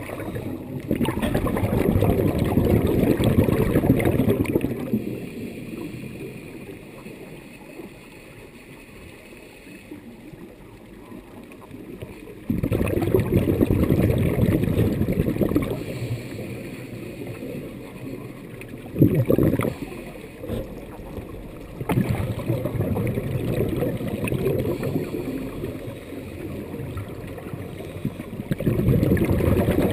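Scuba diver's exhaled breath bubbling out of the regulator, heard underwater: four long bursts of bubbles several seconds apart, with quieter stretches between, and one short sharp louder sound about two thirds of the way through.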